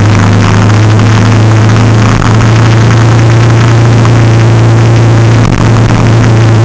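Engine of a moving vehicle holding a steady hum at constant speed, with road and wind noise, recorded very loud.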